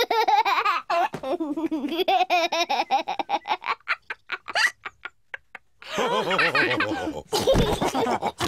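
Cartoon pig characters laughing together. The laughter breaks into a run of short quick pulses in the middle, and a fresh round starts about six seconds in.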